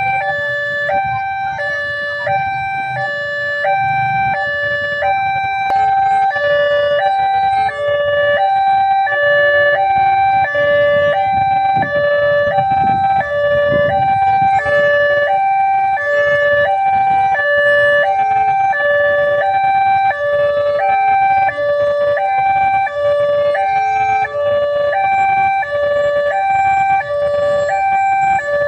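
Railway level-crossing warning alarm sounding a loud two-tone electronic signal that alternates steadily between a high and a low pitch, the warning that a train is approaching. A low rumble runs beneath it and is strongest around the middle.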